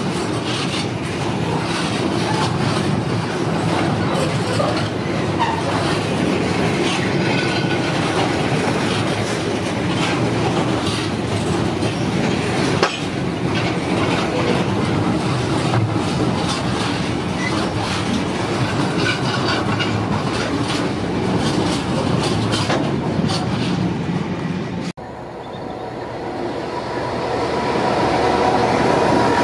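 Freight train of open box wagons running past at speed, a steady rumble with the wheels clicking and clattering over the rail joints. About 25 s in, a cut to a Class 66 diesel locomotive approaching with tank wagons, its engine growing steadily louder.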